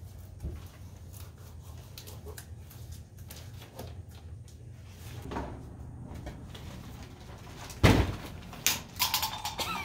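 Quiet handling noises while masking tape is pressed down, then from about eight seconds in a large plastic masking sheet being unfolded, with several loud crinkling rustles.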